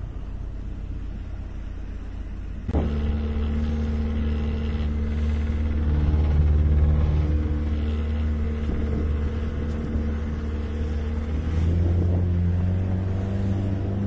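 Small fishing boat's engine running underway, a steady low drone. About three seconds in it jumps abruptly louder into a fuller engine hum, swelling slightly around the middle and again near the end.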